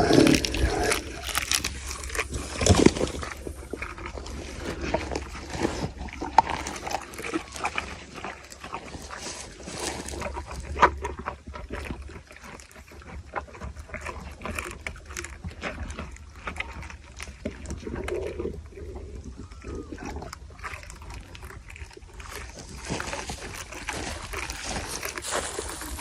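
Camel eating: irregular crunching and chewing clicks, with a louder low animal groan in the first few seconds.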